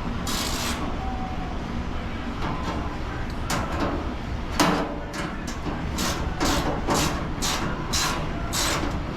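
Ratchet wrench tightening a bolt, its clicking coming in short strokes about twice a second through the second half, over a steady low rumble.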